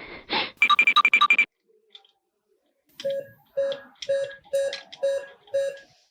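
Electronic beeping from a battery-operated toy's sound chip: a quick run of high beeps, then after a pause six evenly spaced lower beeps, about two a second.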